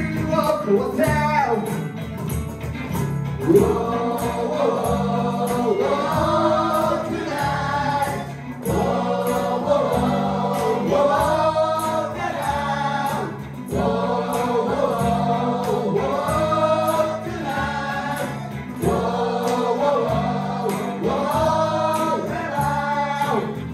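Small live band playing a J-pop song: cajon, acoustic guitar and electric bass under two singers on handheld mics, with several voices joining in a short chorus phrase that repeats about every two seconds.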